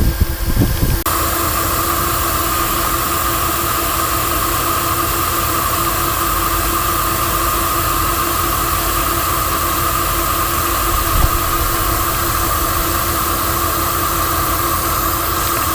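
Monarch Model K engine lathe turning down a steel bar: a steady machine hum with a continuous hissing cutting noise. Irregular knocks give way abruptly about a second in to the steady cut, which stops suddenly at the end.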